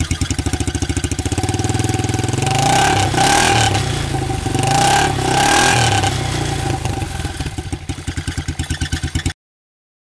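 Roketa 250cc buggy's CN250 single-cylinder four-stroke engine idling through its stock generic muffler, revved up twice, about three and five seconds in, before dropping back to a pulsing idle. The stock muffler gives a tinny, raspy note. The sound cuts off suddenly near the end.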